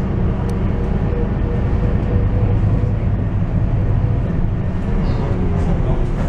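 Scania K230UB city bus under way, heard from inside the cabin: a steady low drone of the rear-mounted engine and drivetrain mixed with road noise, with a faint whine that drifts slightly in pitch.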